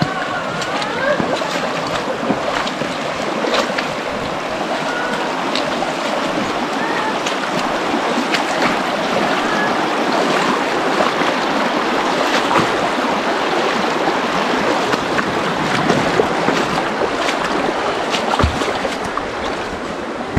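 Shallow rocky creek running steadily, with faint whining vocal noises from a person now and then.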